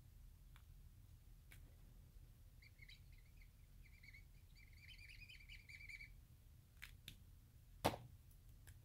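Brush marker tip squeaking as it scribbles colour onto a glass surface: a run of faint, high, wavy squeaks lasting about three seconds, followed by a few light clicks, the strongest near the end.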